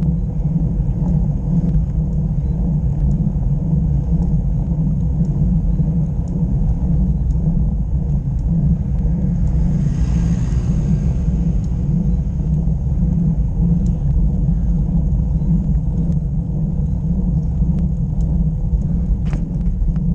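Steady wind rumble on the microphone of a camera mounted on a moving road bike, with a brief hiss about halfway through.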